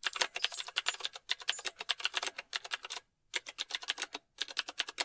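Typing sound effect: a fast run of keyboard clicks matching text typed out on screen, pausing briefly twice.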